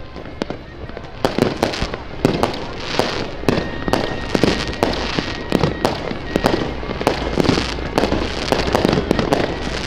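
Firecrackers going off in a dense, irregular run of sharp bangs, several a second, over a continuous crackle.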